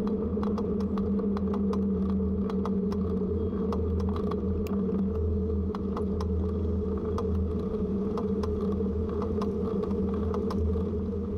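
Steady riding noise of a bicycle on the road: a low rumble and hum from the tyres and frame, with frequent small clicks and rattles.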